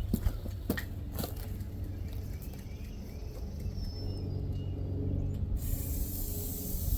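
A few clicks of handling, then an aerosol can of WD-40 spraying in one steady hiss for about a second and a half near the end, squirted onto rusty steel uprights to loosen the rust.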